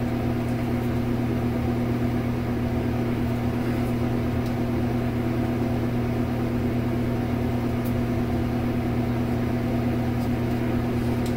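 Steady low electrical or mechanical hum, unchanging in level, with a couple of faint light clicks.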